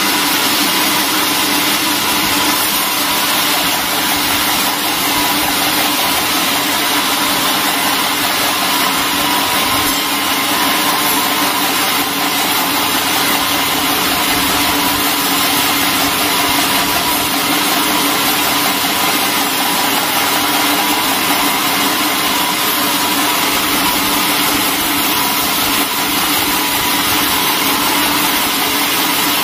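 Large vertical band sawmill running steadily as its blade saws lengthwise through a squared timber.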